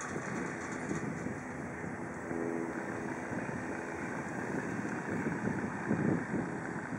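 A steady low engine rumble that swells slightly near the end.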